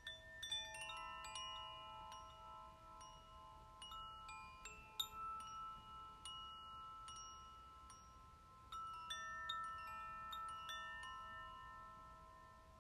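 Chimes ringing softly, struck at irregular moments, each metal note ringing on and overlapping the others. Strikes cluster near the start, around four to five seconds in, and again about nine seconds in, then the ringing fades.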